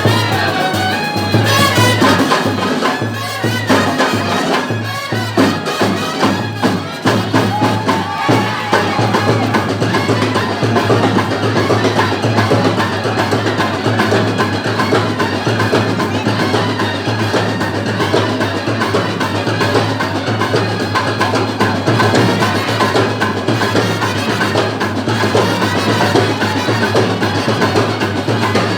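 Loud live band music with steady drumming and percussion.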